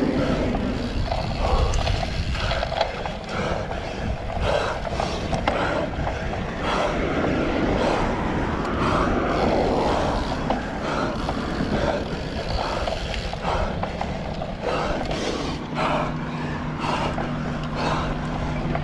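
A cyclocross bike ridden over rough, bumpy ground, rattling and knocking with many short clatters over a steady rushing noise. A low steady hum comes in about three-quarters of the way through.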